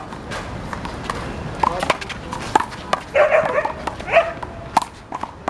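Sharp smacks of a rubber handball being struck and hitting the wall during a doubles rally, with several short loud calls in between, the loudest about three seconds in.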